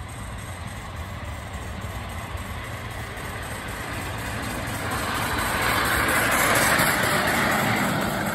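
A 5-inch gauge live-steam model of an LNER A4 Pacific running along a miniature railway track toward the listener, growing louder from about four seconds in, loudest around six to seven seconds in as it passes close by, then easing slightly.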